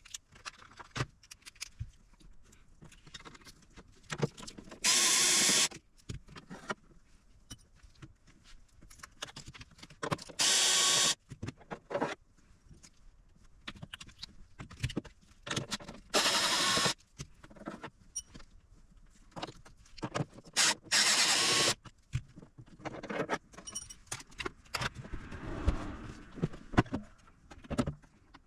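Electric screwdriver running in four short bursts of about a second each, several seconds apart, with clicks and knocks of handling in between, as screws are taken out of a portable power station's case.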